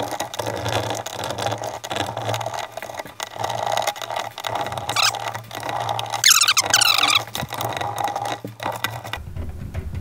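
Fast-forwarded sound of screws being backed out of a Roomba 650's underside with a screwdriver and set down on a wooden table: quick clicking and rattling. A squeaky, high, sped-up voice cuts in twice, briefly about halfway through and again about two thirds through.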